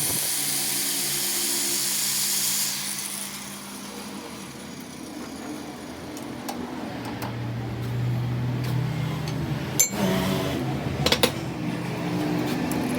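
Workshop power tool running with a high hiss for the first few seconds, then stopping; a machine motor hums steadily from about seven seconds in, with a few sharp clicks near the end.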